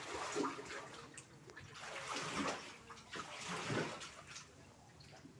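Floodwater sloshing and lapping, with a few louder irregular swishes about two and four seconds in.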